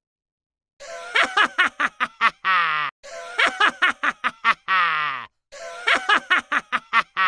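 A recorded laugh sound effect played three times in a row. Each time is a quick run of short 'ha-ha' bursts ending in a drawn-out laugh that falls in pitch. It begins after a short silence.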